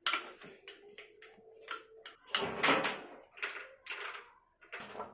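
Irregular clinks and knocks of tools and metal engine parts being handled, about a dozen sharp strikes with a louder cluster about halfway through.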